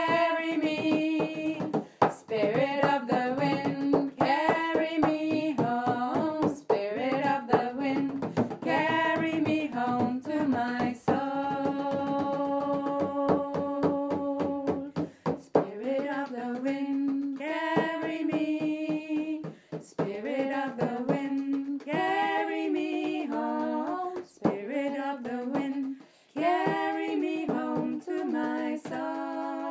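Music: voices singing a slow, repeated chant over a steady percussive beat, with one long held note midway.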